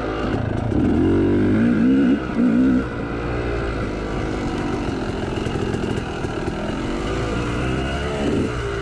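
Yamaha YZ two-stroke dirt bike engine (a big-bore YZ250, sold as a YZ295/300) revving hard with quick throttle blips from about one to three seconds in. After that it runs on at steadier, lighter throttle, its pitch rising and falling as the rider works along the trail.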